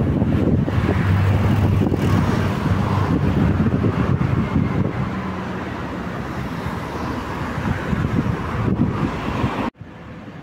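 A car running loud, with wind noise on the microphone; the sound cuts off suddenly near the end, dropping to a quieter background.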